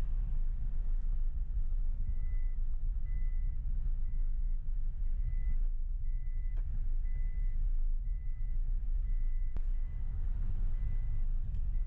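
A high electronic beep repeating about once or twice a second over a heavy low rumble, with two sharp clicks in the middle.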